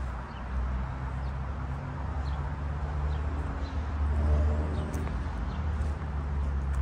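City outdoor background: a steady low rumble of traffic, with an engine swelling and passing about four seconds in, and faint short bird chirps.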